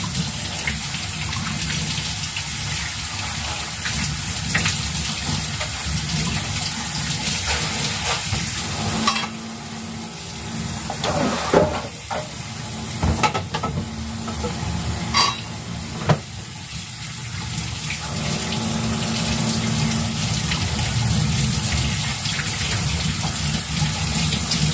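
Kitchen tap running into a sink while a lotus root is washed and rubbed under the stream. About midway the water quiets for several seconds, with a few short knocks, then runs full again.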